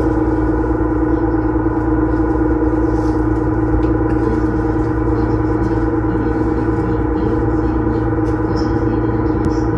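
Sightseeing boat's engine running with a steady, even drone, heard on board.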